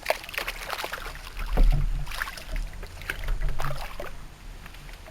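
Water splashing and slapping around a small skiff, with scattered knocks and clicks on the boat, over a low wind rumble on the microphone. It grows louder twice, about one and a half seconds in and again around three and a half seconds in.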